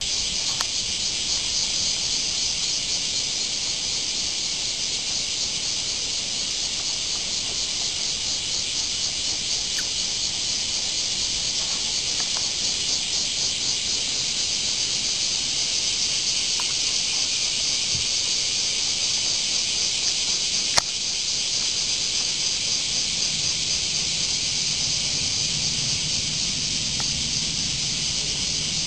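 Dense chorus of cicadas buzzing steadily, with a fine rapid pulsing. One sharp click about two-thirds of the way through.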